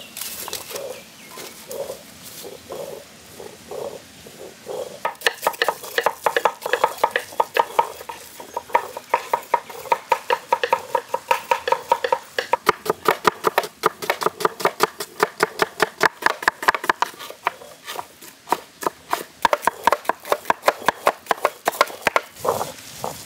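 Hands mixing a large batch of quail meat in a wet curd, turmeric and salt marinade: slow squelches about twice a second, then from about five seconds in a fast run of wet squishes.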